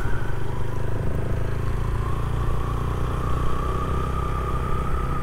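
Single-cylinder Yamaha 125 motorcycle engine running steadily with an even low hum.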